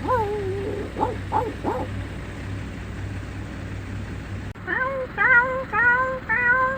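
Dog making a high whine, then three short sharp yips. After an abrupt cut, a run of about five short pitched cries follows, each bending in pitch.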